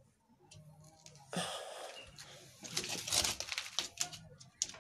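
Scuffling and scraping of a trapped goat struggling while it is handled, hooves on concrete, with a sudden breathy wheeze about a second in and a dense run of scrapes and rustles in the second half.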